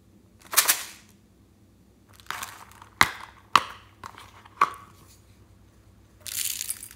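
Hard plastic heart-shaped case handled and its lid snapped open with a few sharp clicks, then small foam beads poured out of it into a glass dish with a short rattling patter near the end.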